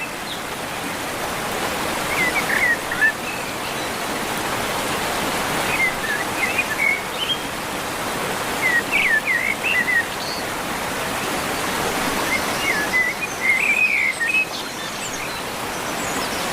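Steady rushing water of Fukiware Falls, with a bird's short chirping phrases coming in every few seconds.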